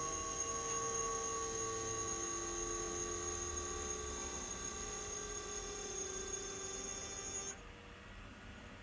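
Electric motor running with a whine of several steady tones whose pitch sinks slowly as it slows. The whine stops abruptly about three quarters of the way through, leaving a faint hum.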